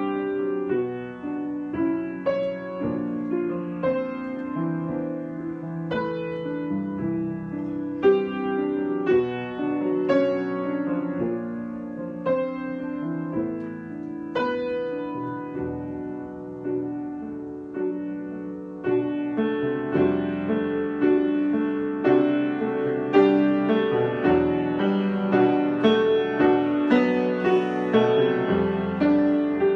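Solo piano improvisation: chords and melody notes struck and left to ring. The playing grows busier, with more frequent notes, from about two-thirds of the way through.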